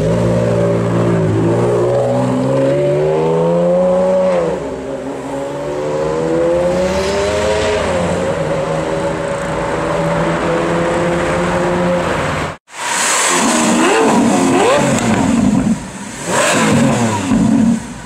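Ferrari Enzo's V12 accelerating: the pitch rises, falls back about four seconds in, rises again, then settles to a steady note. After a sudden cut near the end, a Lamborghini Aventador's V12 revs in short blips.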